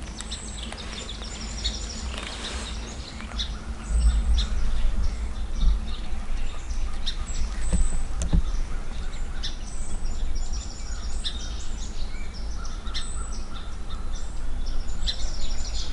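Small woodland birds chirping, short high calls scattered throughout, over a low rumble that grows louder about four seconds in.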